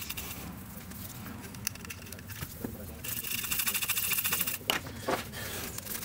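Stiff bristle brush scrubbing the surface of a dryer control circuit board in rapid back-and-forth strokes, a dry scratching that quickens and gets louder about halfway through. It is clearing varnish from around the relay's solder pads.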